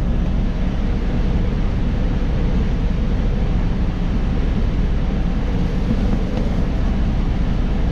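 Steady low rumble of a semi-truck's diesel engine idling, heard from inside the cab.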